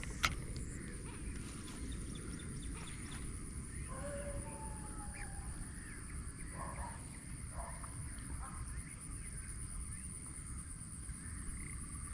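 Open-air ambience of a steady low rumble under a constant high-pitched insect hum, with a few faint bird calls in the middle and a single sharp click just after the start.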